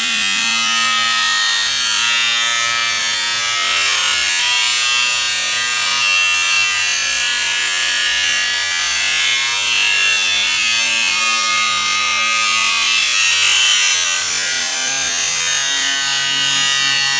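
Angle grinder with a cutoff wheel cutting through a washing machine's sheet-metal body: a steady, loud hiss of the wheel over the motor's whine, which wavers in pitch as the wheel bites.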